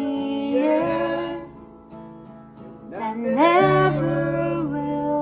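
Worship song played on acoustic guitars and bass guitar with male and female voices singing. It drops quieter for about a second and a half midway, then the voices and bass come back in.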